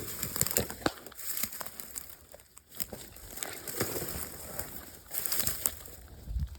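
Irregular crunching and crackling of dry leaves and brush, with a low thump near the end.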